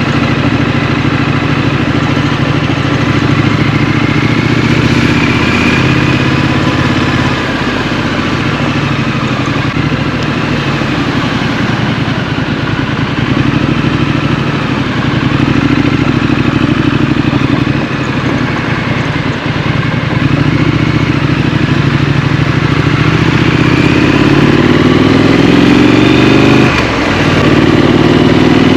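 Triumph Street Scrambler's 900 cc parallel-twin engine running under way, mostly at a steady pitch. Near the end it revs up, drops off briefly at a gear change, and climbs again.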